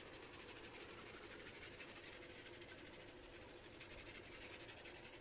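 Near silence: faint, steady room tone with no distinct sound.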